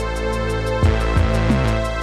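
Electronic background music with a steady beat: low kick-drum thumps under regular high ticks and held synth tones.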